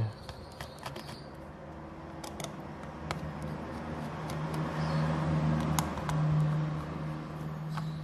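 Low steady hum under a faint hiss, with a few light clicks.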